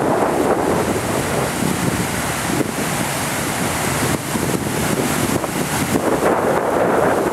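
Wind buffeting the microphone over the rushing and churning of water stirred up by the ferry M.V. Cathlamet's propeller wash against the dock pilings, a steady noisy rush throughout.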